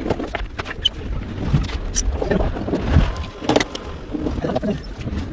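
Irregular knocks and clicks over a steady low rumble.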